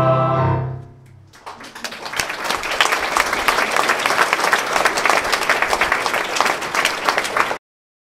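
A choir's held final chord dies away within the first second; after a brief pause the audience breaks into applause, which cuts off abruptly near the end.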